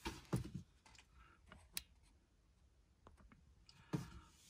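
Quiet, with a few faint, separate clicks and light knocks, as of small things being handled, over a faint low hum.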